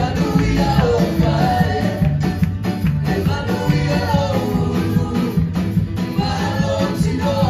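A worship team of men's and women's voices singing a Samoan gospel song together into microphones, over instrumental backing with a steady beat.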